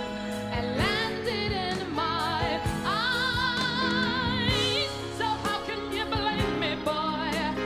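A woman singing live into a microphone over a band with drums, in a slow R&B ballad. About three seconds in she holds one long note with vibrato.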